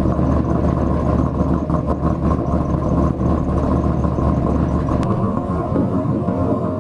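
Car engine idling steadily, cut off abruptly about five seconds in, followed by music.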